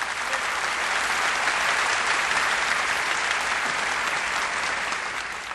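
Audience applauding: dense, steady clapping that builds quickly and fades away near the end.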